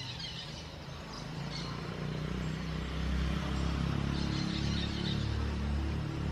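Short, high bird chirps come and go, about a second and then again around four to five seconds in. Underneath, a low engine-like hum builds from about two seconds in and becomes the loudest sound, like a motor vehicle running close by.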